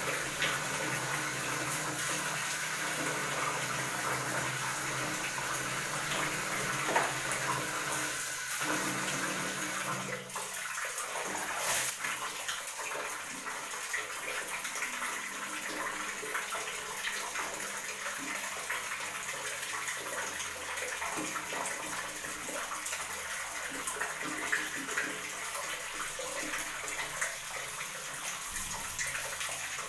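Water running steadily from a tap, with splashing as water is brought up to the face and rubbed in by hand. A low hum underneath stops about ten seconds in.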